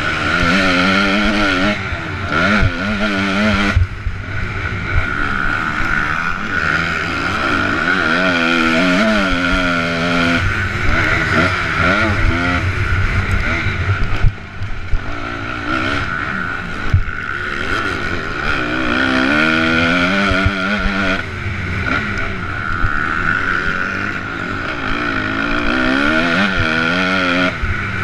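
Honda MX2 motocross bike's engine revving hard under race conditions, its pitch climbing as the rider accelerates and dropping off again into corners, over and over, with wind noise on the helmet-mounted camera. A couple of sharp knocks come about halfway through.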